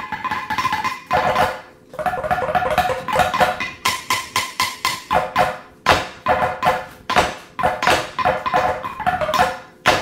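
A five-part drum corps bass-drum line played on upside-down woks with wooden sticks, as a multitrack overdub. Quick interlocking strikes at several different ringing metallic pitches pass from wok to wok, mixed with unison hits, with short breaks about 2 and 4 seconds in.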